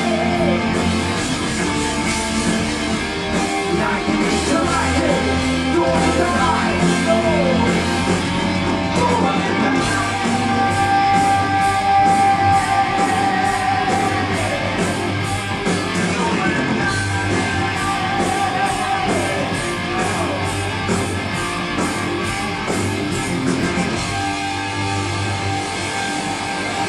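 Heavy metal band playing live: electric guitars and drums, with a lead line of sliding, bending notes and a long held high note around the middle, over a steady cymbal beat.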